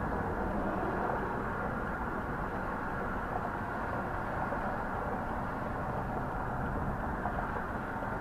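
Steady low rumble of a vehicle, engine and road noise with no distinct events.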